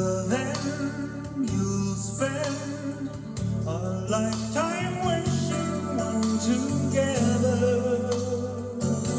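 A song with a singing voice over instrumental backing and a full bass line, played back through Yamaha NS-1000MM loudspeakers driven by a Yamaha CA-2000 integrated amplifier.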